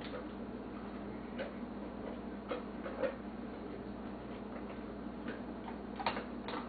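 A dog eating from a bowl: a few scattered sharp clicks at irregular intervals, over a steady low hum.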